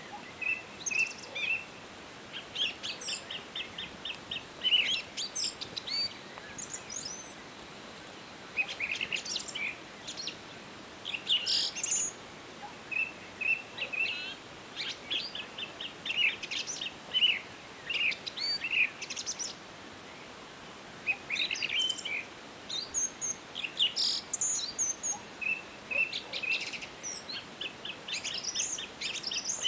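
Songbirds singing in a forest: phrases of quick repeated trill notes and high chirps, broken by short pauses of a second or two, over a faint steady hiss of background noise.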